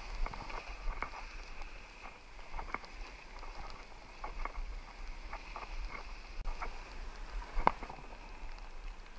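A scuba diver in fins wading through shallow surf over shingle into the sea: irregular knocks and splashes over a low steady rumble, with the sharpest knock near the end.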